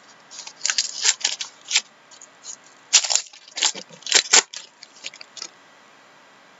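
Foil trading-card pack wrapper crinkling and tearing as it is ripped open by hand, in two bursts of crackle, then dying down to a few faint ticks as the cards are slid out.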